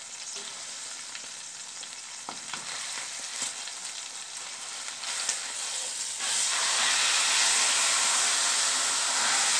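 Pork leg searing in lard in a heavy aluminium pot, a steady high sizzle, with a few clicks and scrapes of a spatula against the pot as the meat is worked loose. About six seconds in the meat is turned over onto its unseared side, and the sizzle jumps louder and stays louder.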